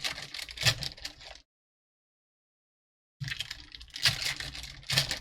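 Clicking and crinkling of baseball card packs and cards being handled, as wrappers are opened and cards flicked through. It comes in two spells, with about two seconds of total silence between them.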